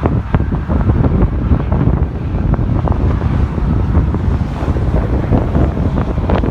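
Strong gusty wind buffeting the microphone: a loud, steady low rumble with frequent crackles.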